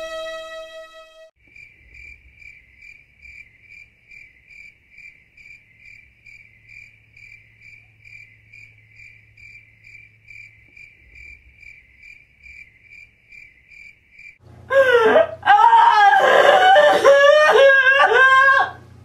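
A held musical note dies away, then crickets chirp softly and evenly, about two to three chirps a second. Near the end, a woman wails loudly.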